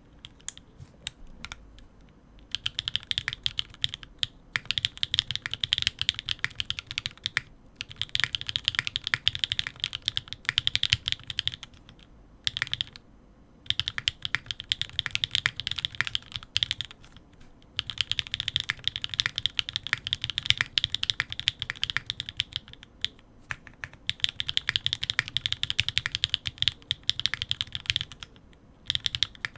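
Custom 65% mechanical keyboard with Gateron RAW linear switches, GMK keycaps and an aluminium plate being typed on fast. Keystrokes come in runs of several seconds, each broken by a pause of about a second, after a few scattered single presses at the start.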